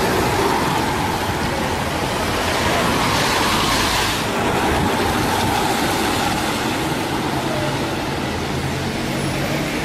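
Street traffic: cars moving slowly with engine hum and tyre noise, swelling as a car passes about three to four seconds in.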